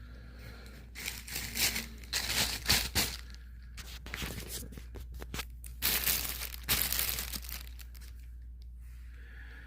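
Packaging being handled and rustled: irregular crinkling, tearing-like bursts for several seconds that die away about two seconds before the end.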